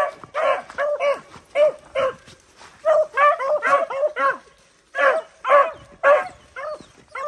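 Beagles baying in a rapid run of short, overlapping yelps as they trail a rabbit's scent, with a brief pause about halfway through.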